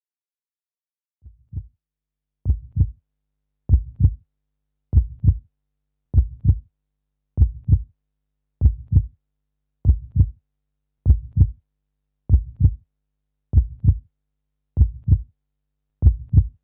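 Heartbeat sound: a steady lub-dub double thump, repeating a little slower than once a second. It starts about a second in.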